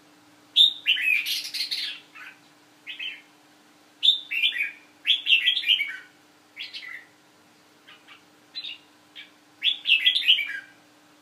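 Caged red-whiskered bulbul singing: short phrases of quick chirping notes, about half a dozen, with brief pauses between them.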